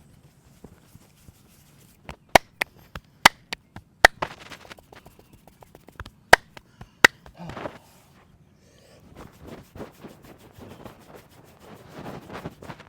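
Hands of a masseur giving a head and back massage: about a dozen sharp, loud cracks between about two and seven seconds in, then softer rustling rubbing against skin and hair.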